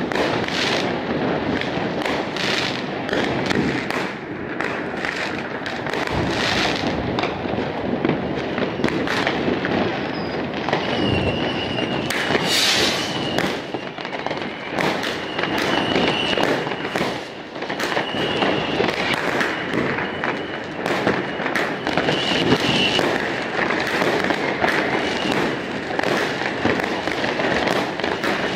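Fireworks and firecrackers going off without a break: a dense crackle of bangs near and far. A high whistle comes and goes from about halfway through.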